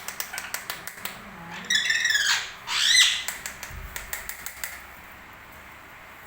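Pet parrot calling twice, a harsh squawk about two seconds in and a rising-then-falling call about a second later, over a quick run of sharp clicks. The clicks stop and it goes quiet at about five seconds.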